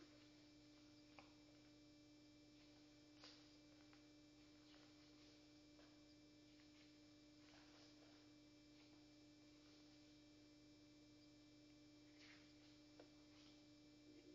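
Near silence: a faint steady hum with a few soft clicks.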